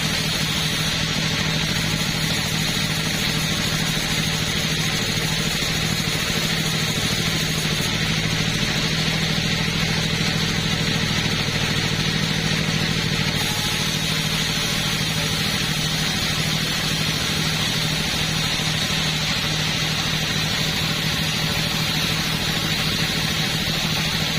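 Two-stroke chainsaw running steadily, its engine note holding level without a break.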